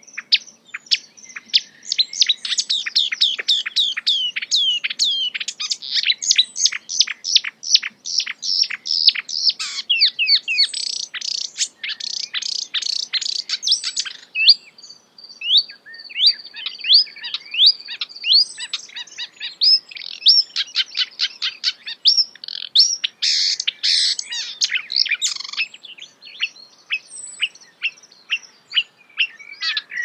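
Marsh warbler singing its fast, near-continuous song, a rapid stream of sharp chattering and whistled notes strung with imitations of other birds' calls, with a brief lull about halfway through.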